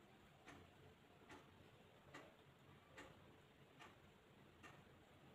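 Near silence with about six faint, evenly spaced ticks, a little more than one per second.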